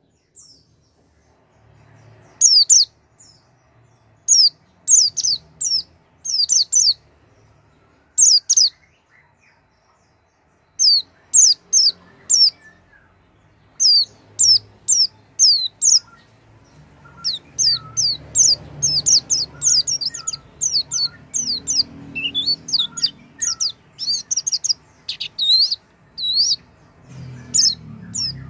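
White-eye (pleci) song: quick trains of high, thin, downslurred chirps in short phrases with gaps, becoming nearly continuous in the second half. This is the kind of song played as a lure to get a silent pleci to start singing.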